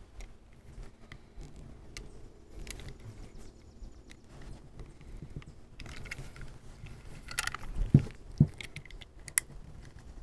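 Utility knife scoring around the rubber outer jacket of a 30 amp RV power cord: faint scraping and scratching with scattered small clicks, and a louder rasp and knock about seven to eight seconds in.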